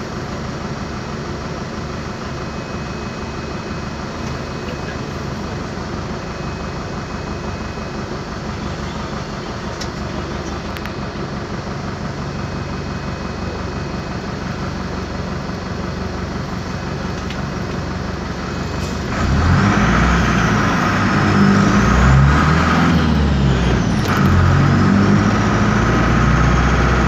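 Otokar M-2000 midibus's air-cooled Deutz diesel idling steadily, heard from inside the cabin. About two-thirds of the way in it revs up and gets louder as the bus pulls away, its pitch rising and falling as it goes through the gears.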